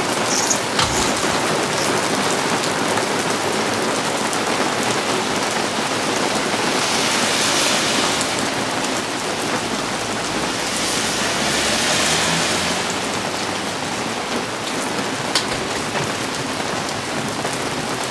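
Heavy thunderstorm rain pouring steadily, swelling louder twice around the middle, with a few sharp taps of drops striking something close by.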